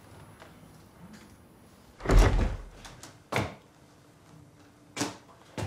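A door banging open with a heavy, low thud about two seconds in, followed by three single sharp thuds spread over the next few seconds.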